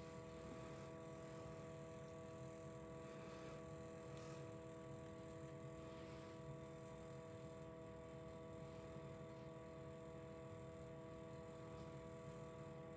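Near silence: room tone with a faint steady hum of several held tones.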